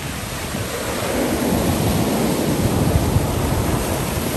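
Ocean surf washing up over a rocky shore, the wash swelling about a second in and staying loud, with wind rumbling on the microphone.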